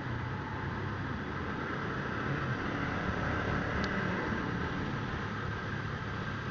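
Motorcycle engine running steadily under way, under an even rushing noise.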